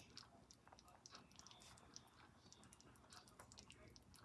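Slow cooker of corned beef and cabbage simmering: faint bubbling of the broth with small, irregular pops.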